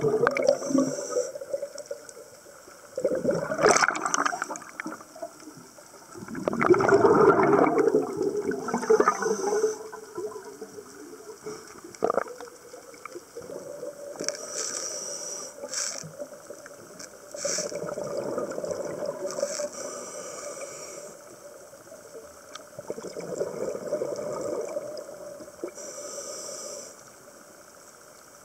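Scuba diver breathing underwater: a short hiss from the regulator on each inhale and bursts of exhaled bubbles, the two loudest bubble bursts in the first ten seconds and weaker ones later.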